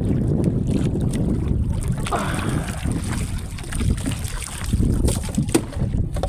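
Wind rumbling on the microphone over water splashing beside a small boat as a fishing net and its float are hauled in, with scattered knocks and clicks.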